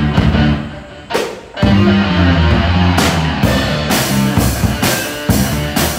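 Background music with guitar and drums keeping a beat.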